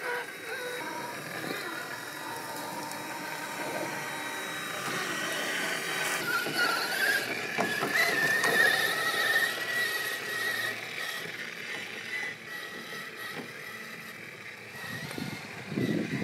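Axial SCX6 1/6-scale RC rock crawler's electric motor and gear train whining as it crawls over rock. The whine rises in pitch about six seconds in and then holds steady and high. A few knocks and a rougher scrabbling near the end come from the tyres working over stone.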